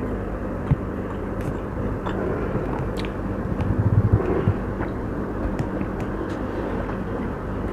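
A person eating and chewing food, with a few short sharp clicks, over a steady background rumble and hum.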